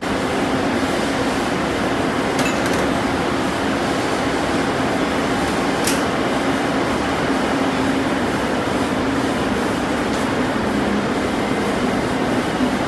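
Steady loud roar of commercial kitchen ventilation, with a few sharp clicks now and then.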